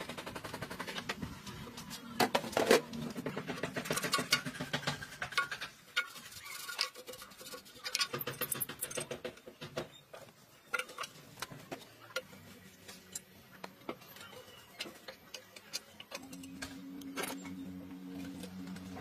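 Scattered knocks, clinks and scrapes of metal parts being handled on a powder grinding machine as its hopper is worked on by hand, with the loudest knocks about two to three seconds in.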